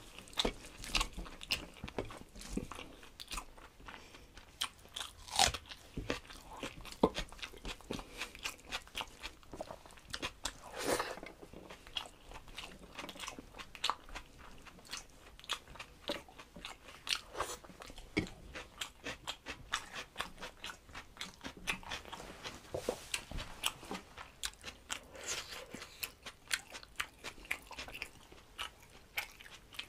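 Close-miked eating: a man chewing rice and curry eaten by hand, with many sharp mouth clicks and wet smacks and some crunchy bites, while his fingers mix rice on a steel plate.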